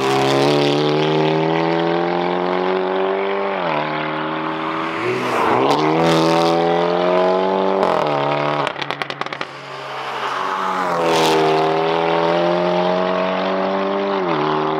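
Stage 2 Hyundai i30N DCT's turbocharged four-cylinder engine and exhaust driving hard: a steady note that drops about four seconds in, breaks and climbs again through quick gear changes, then a rapid run of crackles a little past halfway. The note then climbs to a steady pull and drops again near the end.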